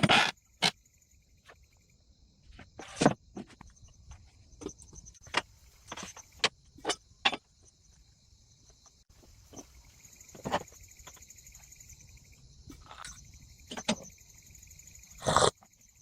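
Insects, such as crickets, chirping steadily in high, even tones, with scattered sharp knocks and taps; the loudest taps come about three seconds in and near the end.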